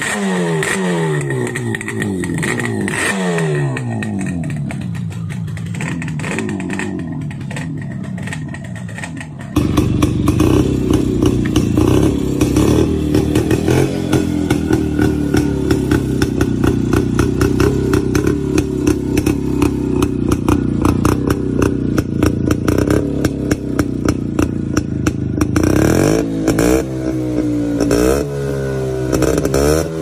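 Yamaha RD350's two-stroke parallel-twin engine revved again and again, each blip rising and falling in pitch. About ten seconds in it cuts to the louder, steady running of a Yezdi Roadking's two-stroke single-cylinder engine, which is blipped several times near the end.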